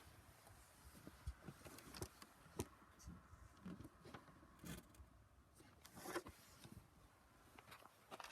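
Near silence, with a few faint, scattered clicks and rustles.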